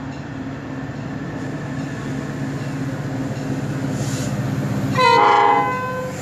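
Metra diesel locomotive approaching, its low engine rumble growing steadily louder, with one short blast of its horn about five seconds in.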